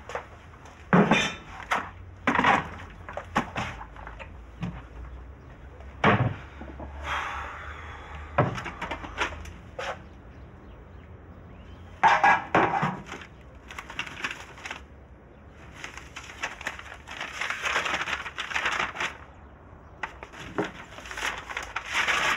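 Crockery and cutlery clattering in a string of sharp knocks and clinks as dishes are handled and cleared, with a longer stretch of continuous clatter near the end.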